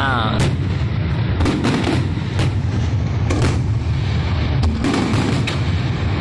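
Fireworks display: aerial shells bursting in a fast, uneven string of sharp bangs over a continuous low rumble.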